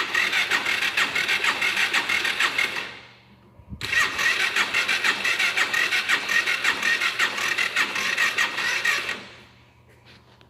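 Electric starter cranking the 2010 Yamaha Factor 125's single-cylinder engine in two tries, about three seconds and then about five seconds, with a short pause between. Each try is a fast, even whirring that stops without the engine catching.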